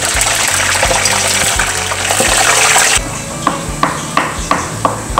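Eggplant halves sizzling in hot frying oil; about three seconds in this gives way to a knife chopping mortadella on a wooden cutting board, sharp even strokes about three a second. Background music plays under both.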